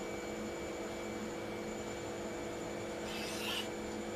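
Faint steady background hum of several level tones, with a brief soft rub about three seconds in as a hand brushes over the phone on the table.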